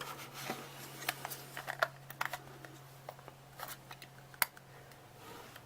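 Small, sharp plastic clicks and handling rattles of a Sony Cyber-shot DSC-TX30 compact camera as its battery is fitted, with the clearest clicks about two seconds in and near four and a half seconds.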